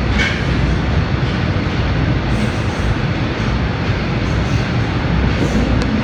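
Subway train running through a tunnel, heard from inside the car: a loud, steady rumble of wheels on rails and motors. There is a brief higher hiss just after the start and a short sharp tick near the end.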